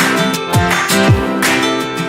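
Background music of strummed acoustic guitar, with two low falling sweeps a little past halfway.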